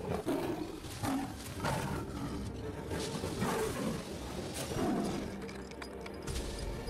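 Royal Bengal tiger snarling and roaring several times over, in quick successive bursts.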